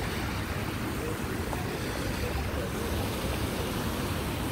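Steady outdoor background noise: a low rumble with a hiss over it, no distinct events.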